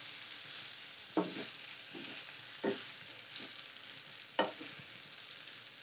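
Cut potatoes and long beans sizzling in a frying pan as they are stirred with a spatula; three distinct spatula strokes stand out over a steady sizzle.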